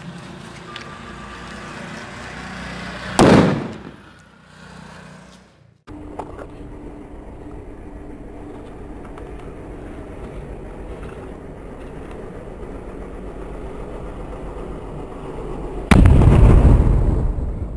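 Sutli bomb, a jute-twine-wrapped Diwali firecracker, exploding with one loud bang about 16 s in that dies away over the next two seconds. Before it there is a steady low rumble and hiss, and a shorter loud burst about 3 s in.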